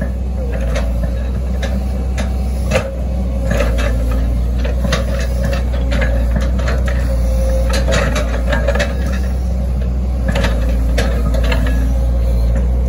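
Hitachi Zaxis 110 excavator's diesel engine running steadily, with scattered clicks and knocks, one sharper about three seconds in, as the steel bucket scrapes and prods through soil.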